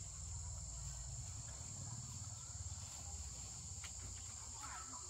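Insects droning steadily at a high pitch, over a low rumble, with a few faint ticks.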